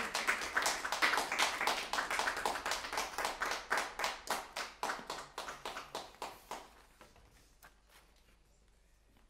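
A small audience applauding. The clapping thins to a few scattered claps and dies away about two-thirds of the way through.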